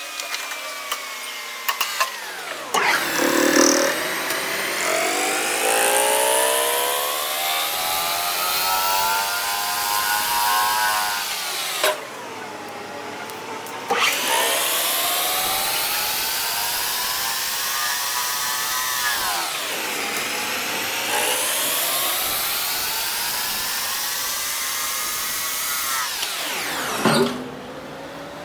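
Machine tool cutting metal: a loud, ringing whine of several pitches that drops sharply and then climbs slowly. It runs in three long passes with brief lulls between them and stops shortly before the end.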